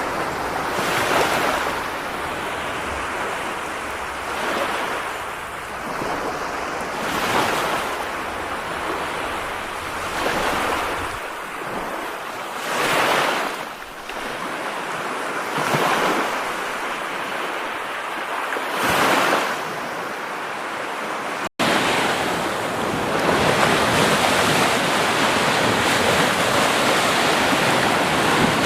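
Continuous rushing water noise from a relaxing rain-sound recording, swelling and easing about every three seconds. After a brief dropout about three-quarters in, it becomes a denser, steady rush.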